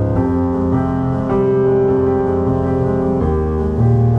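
Calm background piano music, slow held chords that change three times.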